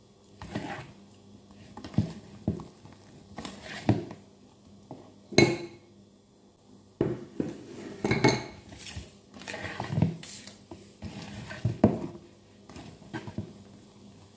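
Wire hand whisk beating flour into thick sponge-cake batter in a plastic bowl. Its wires scrape and clack against the bowl in irregular strokes, with a couple of sharper knocks.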